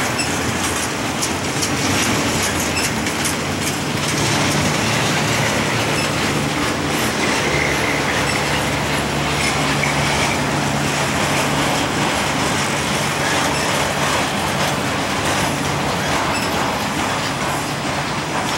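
Double-stack intermodal well cars rolling past: a steady rumble of steel wheels on rail with light clicks over the rail joints. A faint wheel squeal rises out of it about seven to ten seconds in.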